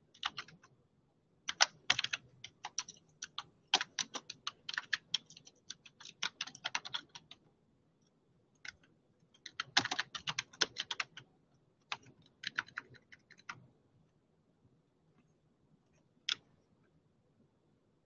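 Typing on a computer keyboard in several quick bursts of keystrokes with pauses between, then a single click near the end.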